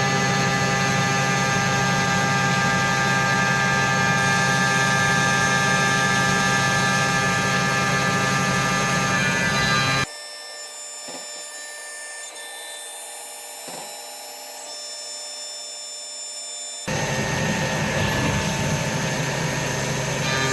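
AutoMateCNC VMC425 vertical machining centre milling a part: the spindle runs with a steady whine over cutting noise. About ten seconds in the sound drops abruptly to a much quieter hum with two faint clicks, and about seven seconds later the loud machining sound returns just as abruptly.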